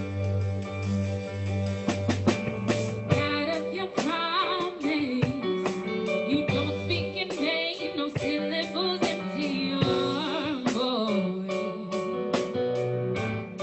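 A song with a band: sustained bass notes and a steady drum-kit beat, with a singer's voice coming in about three seconds in.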